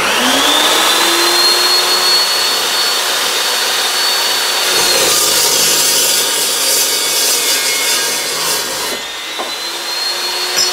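Evolution Evo 380 metal-cutting chop saw: the motor starts and winds up to speed with a rising whine. After about five seconds the pitch drops as the blade bites into a metal pipe, and a harsh, high-pitched cutting noise runs for about four seconds. The whine then climbs back as the blade cuts through, and begins to wind down at the very end.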